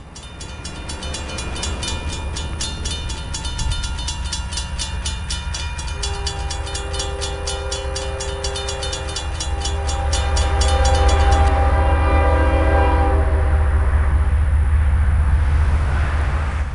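CSX freight train at a grade crossing. The crossing bell rings in fast, even strikes until about eleven seconds in. The locomotive horn blows from about six seconds in. The diesel's deep rumble grows louder in the second half.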